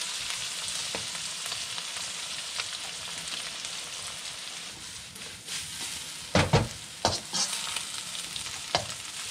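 Beaten eggs sizzling in hot oil in a wok, a steady hiss that slowly dies down. From about six seconds in, a metal spoon stirs, knocking and scraping against the wok several times.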